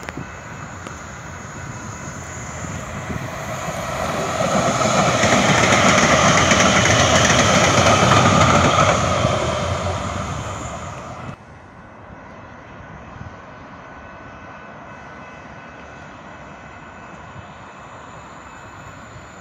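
A large vehicle passing by: a loud rushing noise swells over several seconds, peaks, then fades and cuts off abruptly about eleven seconds in, leaving faint steady background noise.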